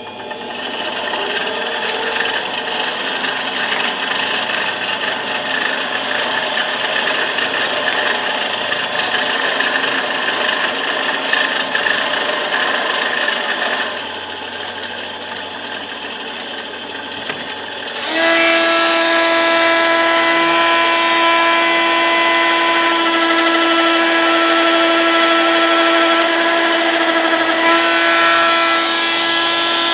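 Mini metal lathe turning a titanium ring while it is hand-sanded, with a steady rubbing hiss. The rubbing drops away for a few seconds. About 18 s in, a handheld high-speed rotary tool starts on the ring, and its steady high whine sits on top of the lathe to the end.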